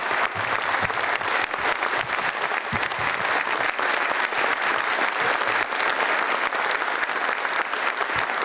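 A large theatre audience applauding: many hands clapping together in a dense, steady patter that holds at one level throughout.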